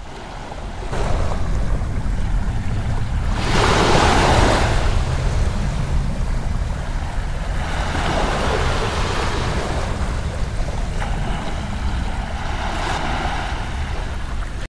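Waves and bow spray rushing along a sailboat's hull as it sails through choppy water, swelling every few seconds, over a steady low rumble of wind on the microphone.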